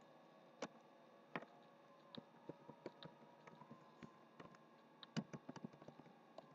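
Faint, irregular clicks of computer keys being pressed: a few single presses, then a quicker run of them about five seconds in.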